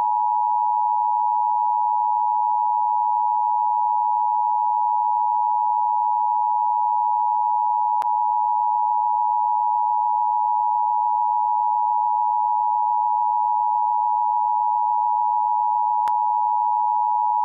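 Emergency alert attention tone: one loud, steady, unbroken electronic tone held for the whole stretch, the alarm that comes before a broadcast Civil Emergency Message. Two faint clicks come about eight and sixteen seconds in.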